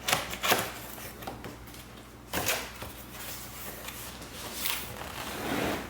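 A large cardboard appliance box being shifted and handled: a few knocks and scrapes, the loudest just after the start and about two and a half seconds in, with a softer scuffing near the end.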